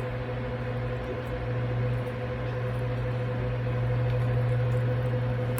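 A steady low mechanical hum with a faint higher whine, getting slightly louder toward the end.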